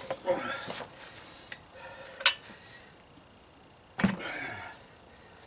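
Removed ATV swing arm with its rear gear case being handled and set down on a stack of tires: metal clatter at first, a sharp clink about two seconds in, then a dull thump just after four seconds followed by a short rattle.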